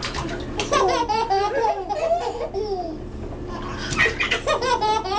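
Babies laughing in a bathtub: high-pitched, pulsing giggles in two long bouts, the first starting about half a second in, the second about four seconds in.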